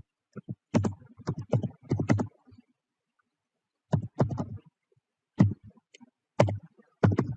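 Typing and clicking at a computer: a quick run of key taps for about two seconds, then scattered groups of clicks, some single, some in twos or threes.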